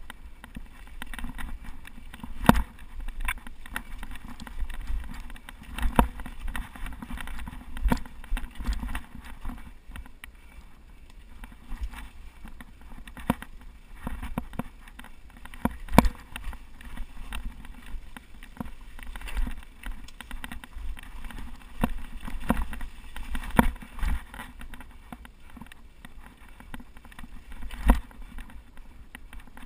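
Mountain bike descending a rough trail: a low wind rumble on the microphone with frequent sharp knocks and rattles as the bike hits bumps and roots, the loudest about two and a half seconds in, around sixteen seconds and near the end.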